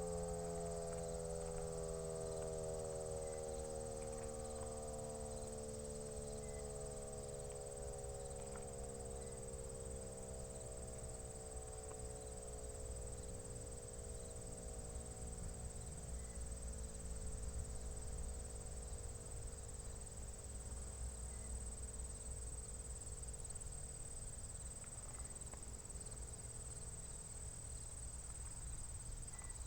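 Fedelcode Model 7 outdoor warning siren winding down after its alert, its paired tones slowly falling in pitch and fading away over about the first twenty seconds. Insects keep up a steady high chirring throughout.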